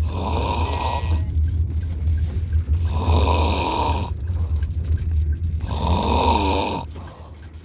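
A small child snoring while asleep sitting up: three rasping snores, roughly three seconds apart, over a steady low hum.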